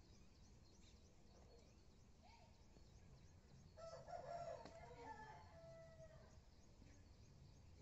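A rooster crowing once, a call of about two seconds starting about four seconds in, over faint high bird chirps.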